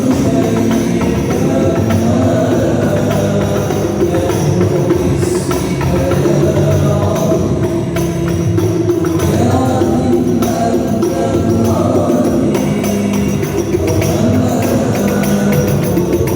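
Sholawat devotional music played loud: hand-drum percussion with jingling, under melodic lines that keep going without a break.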